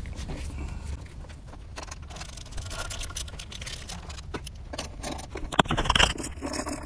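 Light metallic clicks and clinks of a hand tool working the intake manifold bolts, snugged by hand so as not to crack the plastic intake, with the rustle of gloved hands. A short run of louder clicks comes about five and a half seconds in.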